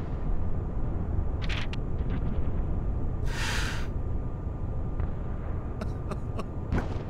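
A man weeping quietly: a sharp sniff about three seconds in, with a brief rustle before it and a few small clicks near the end, over a steady low rumble.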